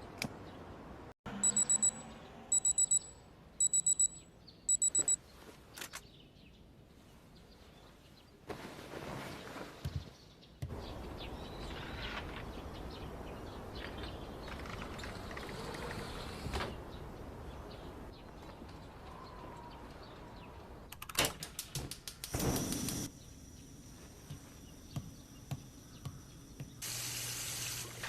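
Electronic beeping in four quick bursts of high beeps, followed by scattered handling noises and clicks.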